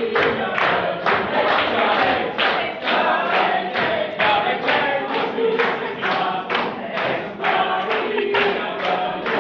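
A class of pupils singing together in unison, loud and rhythmic, with strongly stressed syllables about two to three times a second, close to a chant.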